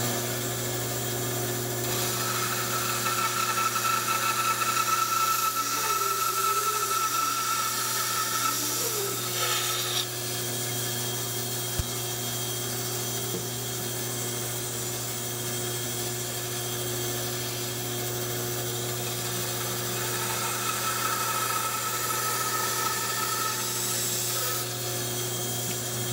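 Bandsaw running steadily while its blade cuts a tenon cheek into a wooden workbench stretcher. The blade is in the wood twice, from about two to ten seconds in and again from about twenty to twenty-five seconds in, each time adding a higher-pitched tone over the motor's hum.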